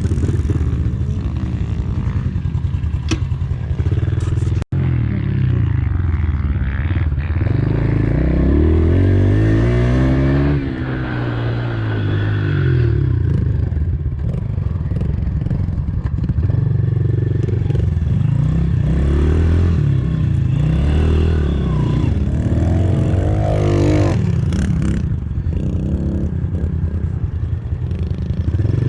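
Pit bike engine being ridden hard, revving up and down again and again as the rider opens and closes the throttle and shifts. There is a short break about five seconds in.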